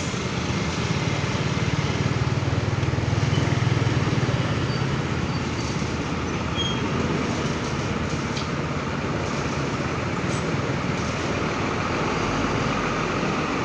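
Large diesel bus engines running at low speed in slow-moving traffic. The rumble grows louder over the first few seconds, then eases into a steady traffic drone with a few faint short squeaks and clicks.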